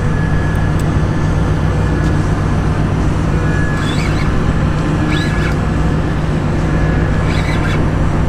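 Boat engine idling with a steady low hum, a few faint short chirps over it.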